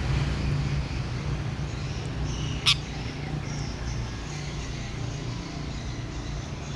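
Steady low rumble of road traffic, with one short, sharp bird call about two and a half seconds in and a few faint high chirps around it.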